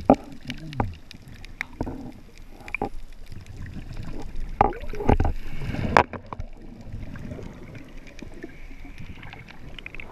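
Surf heard from just under the water: breaking waves churning and bubbling, with scattered knocks and clicks of the camera housing. A louder churning surge builds about four and a half seconds in and cuts off suddenly at about six seconds, leaving a quieter hiss.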